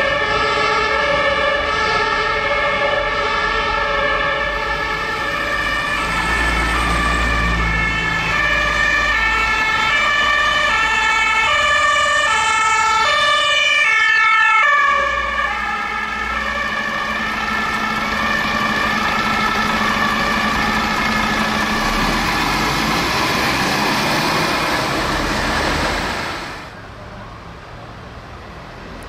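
German fire brigade vehicles responding with their two-tone sirens (Martinshorn) sounding, the tones alternating high and low about once a second, with engine noise underneath. The sirens are loudest just before the middle, then drop off suddenly, and a siren and engine noise carry on steadily until the sound falls away sharply near the end.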